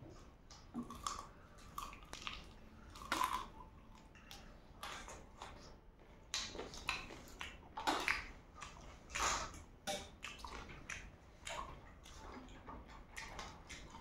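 Close mouth sounds of people eating fried chicken feet and spicy noodles: irregular wet chewing smacks and clicks, one or two every second.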